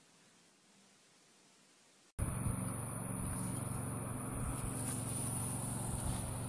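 Near silence, then from about two seconds in a steady high-pitched insect buzz outdoors, with a low hum beneath it.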